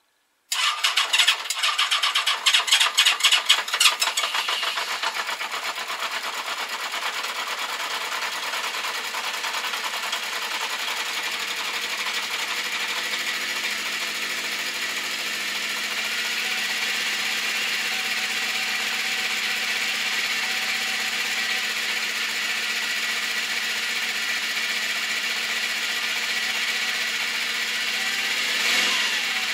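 Honda CB650 Custom's air-cooled inline four-cylinder engine started from cold: it cranks and fires unevenly for about four seconds, then settles into a steady idle, with a brief blip of the throttle near the end.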